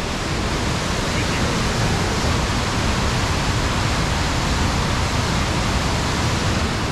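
Narada Falls, a large waterfall: a steady, loud rush of falling water.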